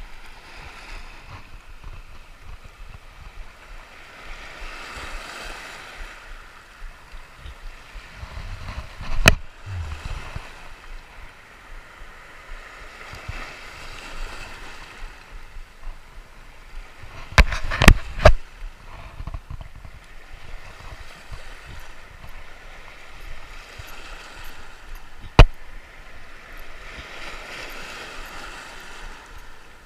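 Small waves washing around the legs in shallow surf, swelling and fading every several seconds. A sharp knock comes about a third of the way in, a quick cluster of knocks a little past halfway, and one more knock near the end.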